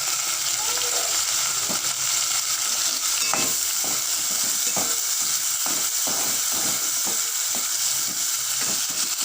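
Small onions and tomatoes sizzling steadily in hot oil in a kadai. From about three seconds in, a spatula scrapes and knocks against the pan in quick, uneven strokes as the mixture is stirred.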